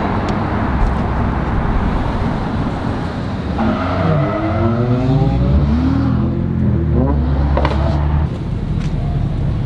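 Car engine and road noise while driving. About three and a half seconds in, an engine revs up in rising sweeps, holds a steady drone, and drops off suddenly about eight seconds in.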